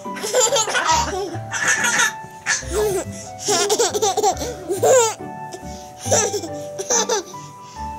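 One-year-old twin babies laughing and giggling in repeated bursts, over background music with a steady beat.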